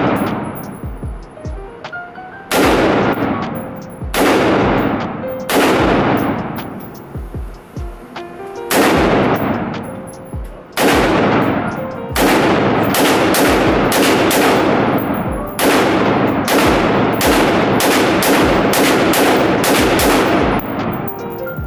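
AR-style rifle fired semi-automatically, over a dozen shots with long echoing tails from the indoor range. The first shots come singly a second or two apart; from about halfway on they come in quicker strings of about two a second.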